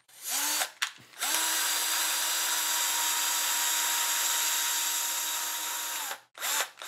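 Bosch cordless electric screwdriver with a hex bit driving a small screw into a plastic RC car part. It gives a brief spin and a click, then runs steadily for about five seconds with a motor whine that rises as it starts and falls as it stops, then gives another short spin near the end.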